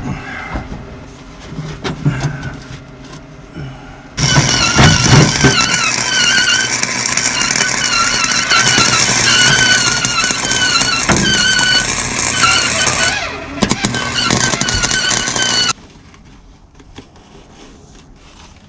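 An electric welding arc running for about eleven seconds as a steady, loud crackling hiss with a wavering high whine on top, starting about four seconds in and cutting off abruptly. Lighter handling noises come before it.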